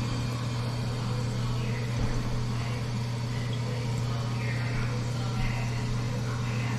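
Toilet tank refilling after a flush: the fill valve runs water into the tank with a steady hiss over a steady low hum. The supply valve is fully open, giving a strong refill.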